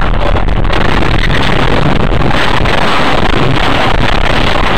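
A car ploughing off the road into deep roadside snow: a loud, steady rushing noise through the dashcam microphone, heaviest around the middle as snow sprays over the windscreen.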